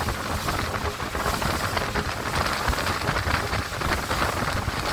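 Steady rushing noise of a speedboat running at speed over open sea: wind buffeting the microphone over the hiss and spray of the boat's wake, with a heavy low rumble.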